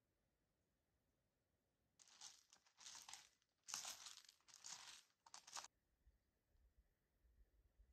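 Footsteps crunching on gravel, five steps at an even walking pace starting about two seconds in, then a faint low rumble near the end.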